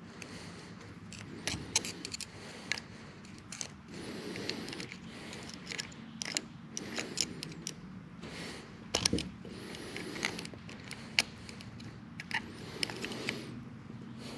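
Steel lock nut being turned by fingers on the gear shaft of a lathe tailstock gearbox, run up to set the bearing float: many small, irregular metallic clicks and short scrapes of metal parts against each other.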